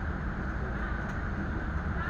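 Steady low rumbling noise with a faint hiss above it and no distinct events.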